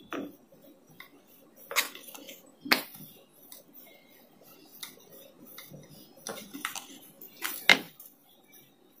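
Rolling pin rolling out stuffed puran poli dough on a wooden board: a soft low rumbling, broken by sharp clicks and knocks, the loudest about two and three seconds in and again near eight seconds.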